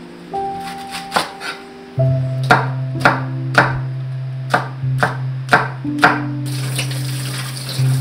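Kitchen knife chopping green onion and red chili pepper on a wooden cutting board, about eight sharp knocks, over background acoustic music. Near the end, tap water runs into a metal strainer of rice cakes with a steady hiss.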